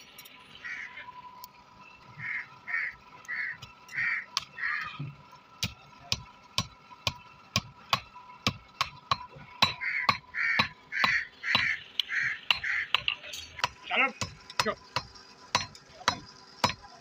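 Hand hammer striking red-hot flat steel on an iron anvil block in repeated sharp blows, about two a second, as hook blanks are forged. Runs of short repeated calls sound over it twice, near the start and in the middle.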